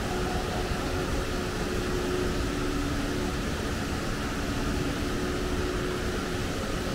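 Steady rushing noise of a large waterfall cascading down rock, even and unbroken.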